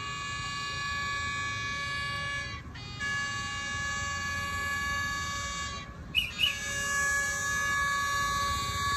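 Approaching diesel railcar's horn sounding a long, steady multi-tone blast, broken twice by brief gaps, over a low engine rumble. Two short high chirps about six seconds in.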